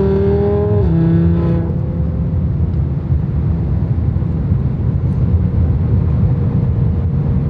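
Heard from inside the cabin, the Golf 7 R's cast-iron-block five-cylinder turbo engine gives a clear engine note that drops in pitch about a second in and fades out by about two seconds in. A steady low rumble of engine and road noise at motorway speed follows.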